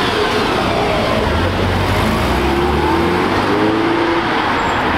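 Porsche 968's four-cylinder engine accelerating away from a standstill, its pitch rising as it revs up.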